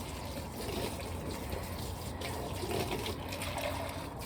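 Water running steadily into a container as a poultry drinker is filled.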